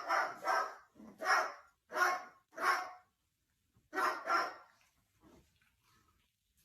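A dog barking: a run of about six barks in the first three seconds, then, after a pause, two more about four seconds in.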